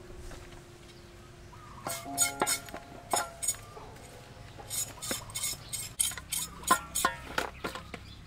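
A knife clinking and scraping against fish in a steel basin: sharp irregular clinks, some with a short metallic ring from the bowl, starting about two seconds in.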